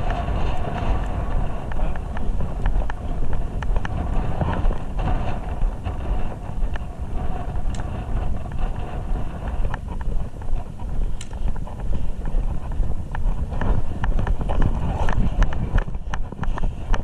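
Rumbling wind and handling noise on a body-worn GoPro's microphone, with many small clicks and knocks scattered throughout.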